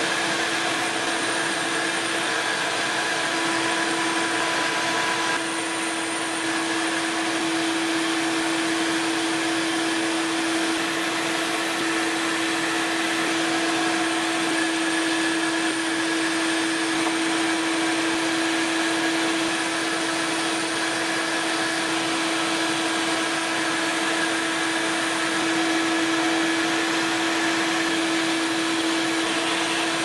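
Shop vacuum running steadily, its hose held at the work to pull away dust, over the steady whine of a high-speed rotary tool sanding the wrapped joint of a bamboo bike frame.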